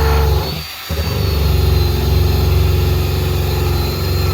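Power drill spinning a rubber eraser wheel against a wet truck body panel to rub stuck-on material off the paint. The motor runs with a steady whine, lets off briefly just under a second in, then spins up again and runs steadily.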